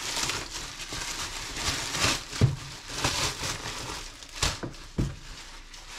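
Packaging crinkling and rustling as a new backpack is pulled out of its wrapping, with a few sharp knocks in the second half.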